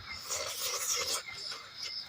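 Crickets chirping in a steady pulsing rhythm, with a short burst of rustling noise in about the first second.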